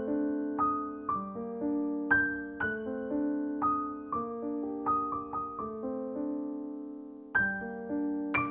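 Background piano music: a slow melody of struck notes, about two a second, each ringing and fading.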